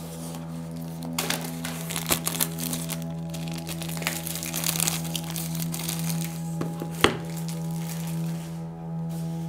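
Clear plastic shrink-wrap crinkling as it is peeled off a cardboard box, with small crackles and one sharp click about seven seconds in, over steady background music.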